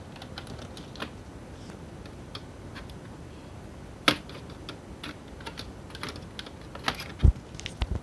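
Plastic clips of a Dell laptop's palm rest clicking and snapping as the panel is pried loose by hand: scattered small clicks, a sharp snap about four seconds in, and a cluster of clicks with a dull thump near the end.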